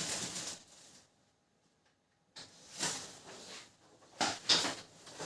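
Sheets of paper being handled and rustled in irregular bursts, with a gap of about a second near the start.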